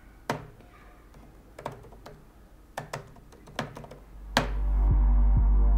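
Laptop keyboard keys tapped in a few scattered clicks. About four seconds in, background music with a low, even heartbeat-like pulse fades in and becomes the loudest sound.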